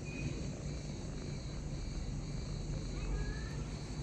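Steady high insect drone over a low rumble, with two brief high chirps, one just after the start and one about three seconds in.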